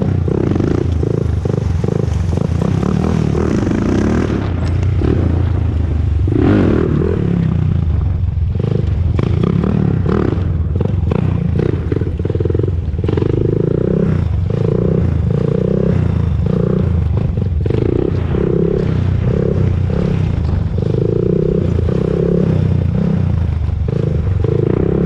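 Honda TRX400EX ATV's single-cylinder four-stroke engine running on a ride. The engine note swells and eases over and over as the throttle is worked, with some light clatter.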